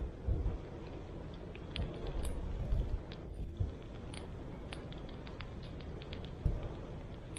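Scattered sharp little clicks and crackles at an uneven pace, over low rumbling thumps.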